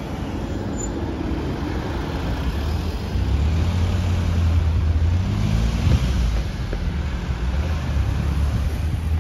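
Street traffic: cars passing close by on a city street, engine and tyre noise swelling about three seconds in and easing off again.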